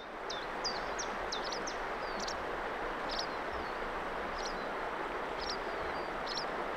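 Steady rush of river water, with small birds giving short, repeated high chirps over it.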